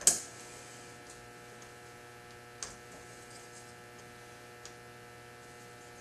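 Steady electrical mains hum, with one sharp click at the very start and two fainter clicks later as a metal trammel bar is handled on a galvanized steel sheet.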